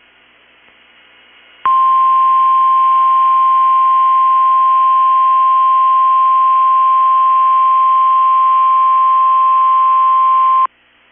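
NOAA Weather Radio warning alarm tone: a single steady 1050 Hz tone that starts about one and a half seconds in, holds for about nine seconds and cuts off abruptly, with faint radio hiss before it. It signals that an Emergency Alert System severe thunderstorm warning is about to be read.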